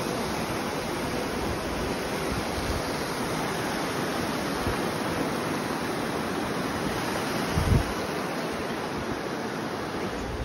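The Virgin River rushing over rocks and cobbles in the Narrows of Zion: a steady, even rush of water. A brief low bump comes about three-quarters of the way through.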